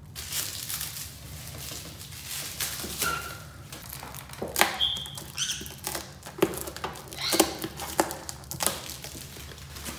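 Plastic packaging wrap crinkling and tearing as it is cut and pulled off, with many irregular sharp clicks and rustles and a few short squeaks.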